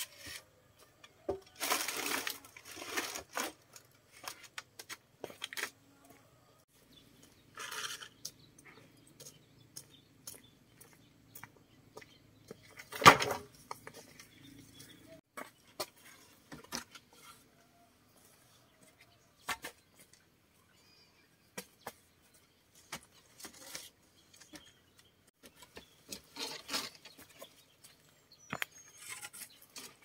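Scattered knocks, clatter and rustling from hand work, with one loud, sharp knock about 13 seconds in.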